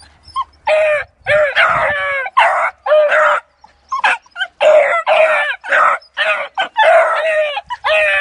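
A pack of beagle puppies yelping and baying in quick, overlapping high-pitched calls, about two a second, each call rising then falling in pitch, with a brief lull near the middle. They are excited hound puppies giving tongue at a rabbit in a wire cage.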